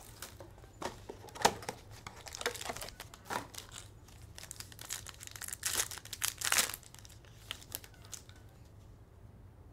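A trading-card box and its foil pack being opened by hand: the wrapper crinkles and tears in scattered bursts that die away near the end.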